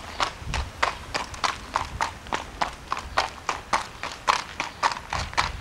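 A black horse's hooves clip-clopping on tarmac as it is led in hand, in an even rhythm of about four hoofbeats a second.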